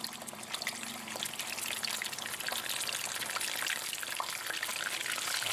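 Raw chicken wing frying in hot oil in a pan: a steady sizzling hiss dotted with many small crackles and pops, growing slightly louder.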